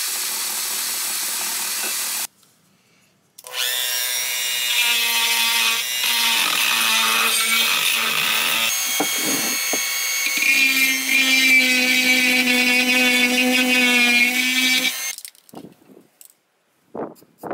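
A drill-driven wire brush scouring paint off the metal base plate of a vintage drill press, a steady hiss. After a brief pause, a Dremel rotary tool runs against the metal with a steady motor whine that steps up in pitch about halfway through, then stops.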